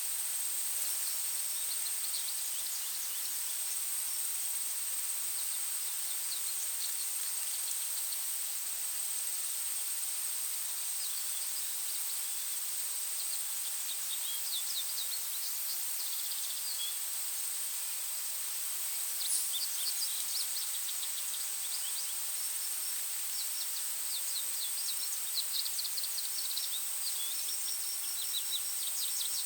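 Birds chirping in short, quick trills that come in spells, busiest toward the end, over a steady hiss and a constant high-pitched tone.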